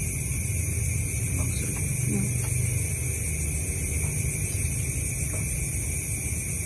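Steady background noise: a low rumble under a constant high hiss, with only a few faint ticks.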